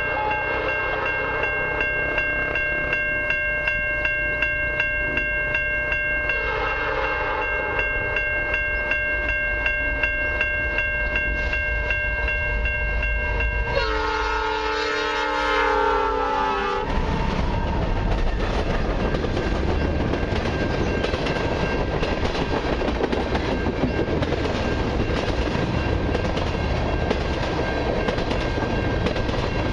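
Level-crossing bells ringing steadily as a CN freight train approaches. The lead locomotive, CN 8872, sounds a horn blast of about three seconds as it passes, a little past halfway, its pitch sagging slightly. Then a steady rumble and clatter of tank-car wheels follows as the cars roll by.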